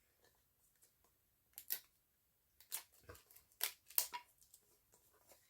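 A few light clicks and taps, about six spread over a couple of seconds, from hands handling a packaged Pokémon tin before it is opened.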